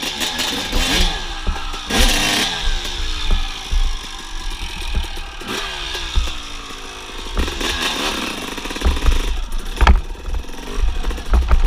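Suzuki RM250 two-stroke single-cylinder dirt bike engine revving up and dropping back repeatedly on a wooded trail, with wind buffeting the helmet camera. A sharp knock near the end, like the bike clattering over a bump.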